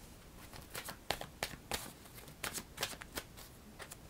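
Tarot cards being shuffled and handled by hand: a string of soft, irregular clicks and flicks.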